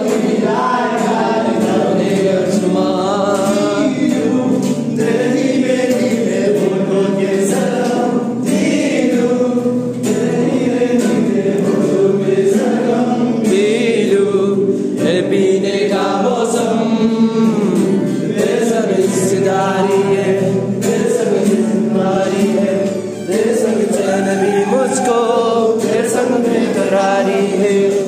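A song sung by several voices together over musical accompaniment, continuous and steady in level.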